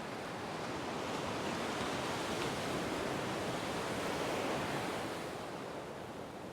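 Surf breaking and washing up a beach, swelling over a few seconds and then fading.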